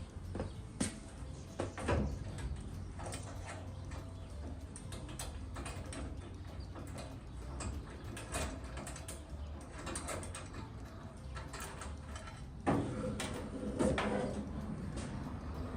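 Hand tools working on a truck's nuts and bolts: a run of small metallic clicks and clinks, with louder clanks about 13 and 14 seconds in.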